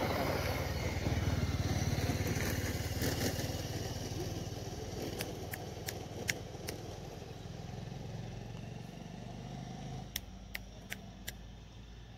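A motor vehicle engine running, loudest in the first few seconds and then easing off to a steady low hum. Sharp short clicks come in two small clusters, midway and near the end.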